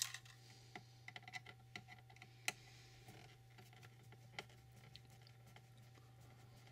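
Sparse small clicks and taps of a Torx T6 screwdriver unscrewing the battery cover screws from a plastic device casing, the loudest about two and a half seconds in, over a faint steady low hum.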